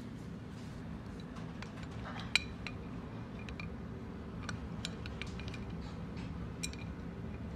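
Light metallic clicks and clinks as a stainless-steel faucet spout, its fitting and a pair of pliers knock against each other and the brass valve body during assembly, with one sharper click about two seconds in, over a low steady hum.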